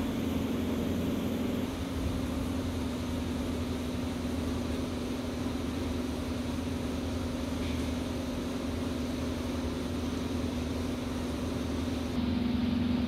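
Steady mechanical hum with a constant low tone, from a running motor.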